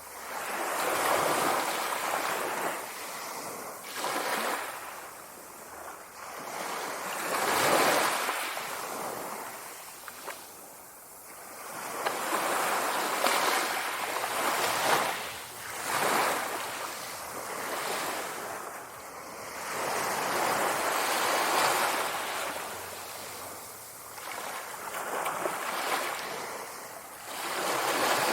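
Sea surf: waves rolling in and washing out, each swell rising and falling away every few seconds.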